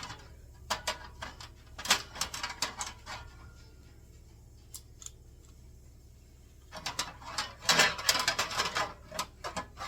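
Sharp metallic clicks and taps from Cleco sheet-metal fasteners being set with Cleco pliers and the metal seat panel being handled, in two bunches of rapid clicks with a quieter pause between.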